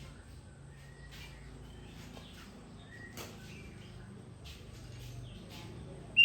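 Faint, scattered songbird chirps and short calls over a steady low background hum.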